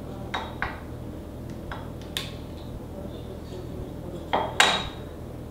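Small hard clicks and clinks from a small speaker and circuit-board parts being handled: two about half a second in, two more around two seconds, and the loudest pair near the end, over a steady low hum.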